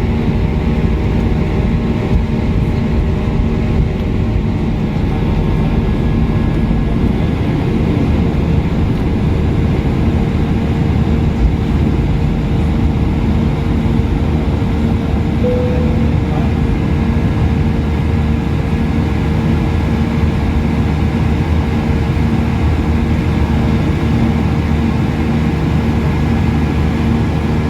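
Cabin noise of an Airbus A320 with its jet engines running: a steady rumble and hum with constant tones, the level unchanging.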